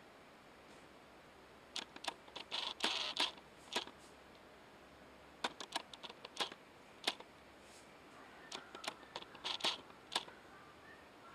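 Scattered sharp clicks and light taps, coming in small irregular clusters of a few at a time.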